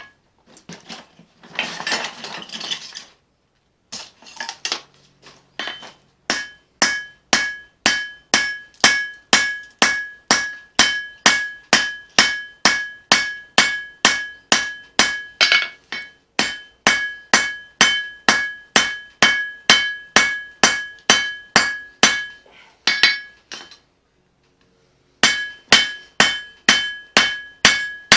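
Hand hammer striking steel on an anvil in steady forging blows, about two a second, each blow leaving a short metallic ring. A brief burst of noise comes about two seconds in, and the hammering stops briefly near the end, then starts again.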